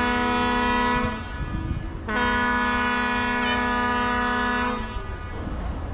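A boat's horn sounding two long, steady blasts on one note with rich overtones. The first stops about a second in; the second starts about two seconds in and lasts about two and a half seconds.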